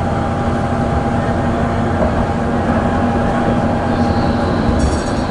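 Tatra KT4D tram running along the track: a steady rumble with a constant hum, and a brief high squeal near the end.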